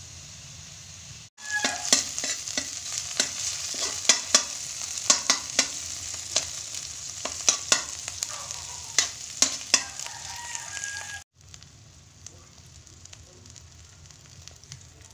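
Sliced onions and tomatoes sizzling in hot oil in a metal wok, with a spatula clicking and scraping against the pan as they are stirred. The sound breaks off abruptly twice, and near the end there is a softer, steady sizzle as beaten egg fries in the pan.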